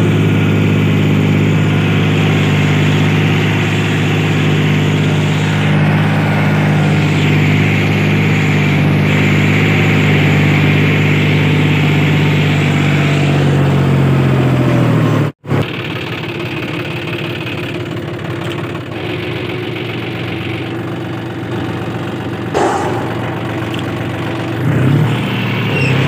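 John Deere 5105 tractor's three-cylinder diesel engine running steadily under load, heard from the driver's seat while it pulls a mouldboard plough. About two-thirds of the way through, its note sinks, the sound breaks off for an instant, and it resumes quieter and lower.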